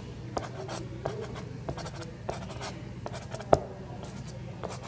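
Soft pastel stick scratching across paper in short strokes, with small taps, the sharpest about three and a half seconds in.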